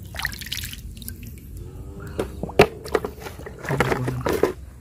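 Hands squelching and scraping through wet mud and shallow water while digging out clams, with scattered clicks and one sharp click about two and a half seconds in.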